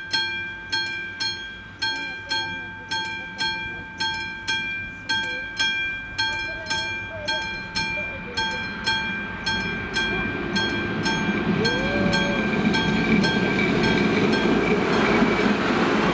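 Level-crossing warning bell of an AŽD 71 crossing ringing at about two strikes a second. From about ten seconds in, an approaching train's rumble rises and drowns out the bell as the train reaches the crossing near the end.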